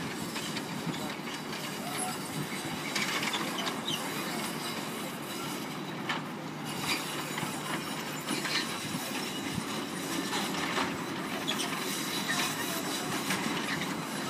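Steady mechanical rumble with irregular clanks and clicks, from the harbour construction works' crane barges and work boat.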